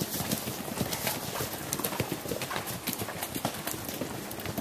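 Horse hoofbeats at a canter over dry fallen leaves: a fast run of dull thuds mixed with leaf crunching.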